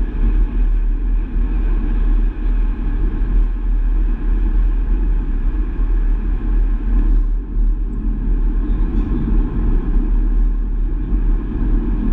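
An Astra Mk6 GTC driving at a steady speed: a continuous low rumble of engine, tyres and road, unchanging throughout.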